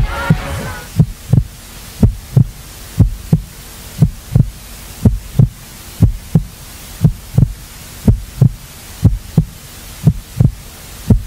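Heartbeat sound effect: a steady low double thump, lub-dub, about once a second, over a faint hiss. The tail of a song fades out in the first second.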